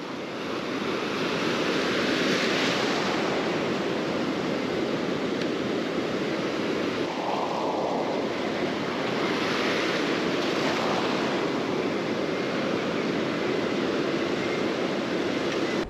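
Heavy ocean surf breaking and washing up the beach, swelling and easing several times.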